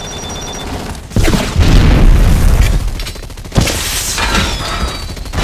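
Film battle sound effects: sustained rapid gunfire and booming blasts from armoured suits and combat drones. The sound grows louder and heavier about a second in, with a sharp hit about three and a half seconds in.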